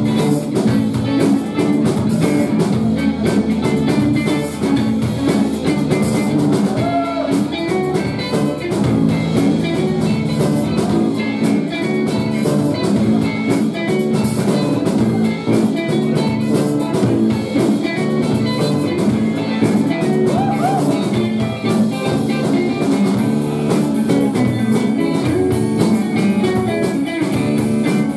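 Live rock band playing: electric guitars over a Pearl drum kit, loud and steady.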